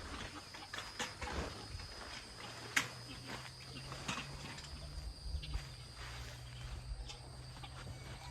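Potatoes being handled and set into a garden wagon: scattered light knocks and rustles, with one sharper knock about three seconds in. A faint steady high insect drone runs underneath.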